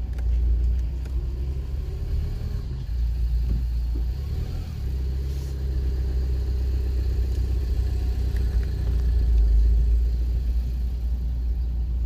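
A car driving along a road, heard from inside the cabin: a steady low rumble of engine and tyre noise.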